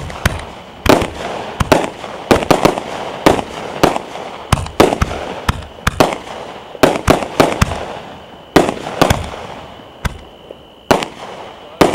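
Consumer fireworks going off in quick, irregular succession: sharp bangs, at times several a second, with crackling between them. The bangs thin out over the last few seconds.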